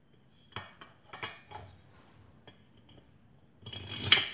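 Alloy cylinder head of a BSA Bantam D3 two-stroke engine being fitted over the barrel studs: a few light metallic clinks, then a louder cluster of clatter about four seconds in as it goes down onto the barrel without a head gasket, metal on metal.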